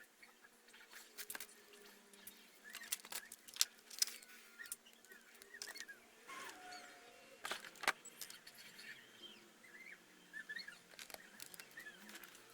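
Faint scattered clicks and taps of hands handling a tablet and its parts, with faint short high chirps in between.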